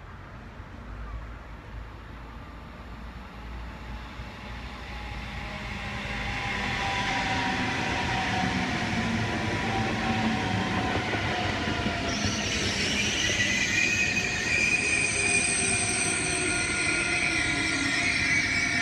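ICE 3 (DB Class 403) high-speed electric train running into the station and slowing, growing louder over the first several seconds as it approaches. Steady whining tones fall slowly in pitch, and from about twelve seconds in a loud high-pitched squeal from the wheels and brakes joins in as it brakes.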